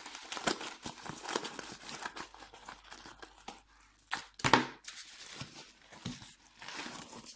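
Packaging of a small camera box being opened by hand: irregular crinkling and tearing, with one louder rip about four and a half seconds in.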